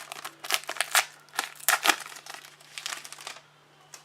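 A trading card pack wrapper being torn open and crinkled by hand: a quick run of sharp crackles and rustles that stops about three and a half seconds in.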